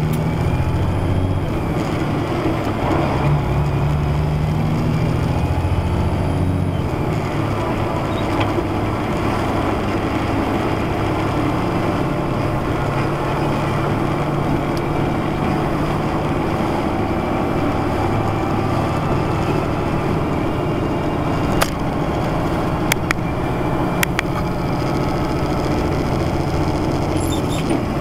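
Steady in-cab drone of a semi truck's diesel engine and tyre noise while cruising on the highway, with a few sharp clicks later on.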